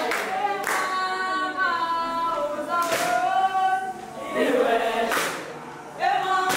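A group of voices singing together in harmony, unaccompanied. A sharp clap-like beat falls about every two seconds.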